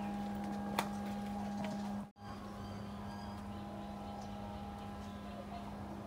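A steady machine hum, a low tone with a fainter higher tone above it, over background noise. A single sharp click comes about a second in, and the sound cuts out for an instant about two seconds in.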